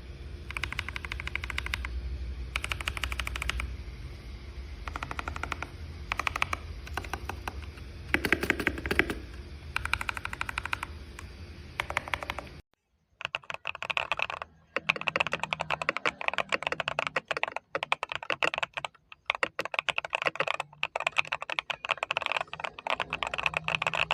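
Typing on a mechanical keyboard with Akko V3 switches: bursts of rapid keystrokes over a low steady hum. About halfway through it cuts to a second take of faster, more continuous typing without the hum.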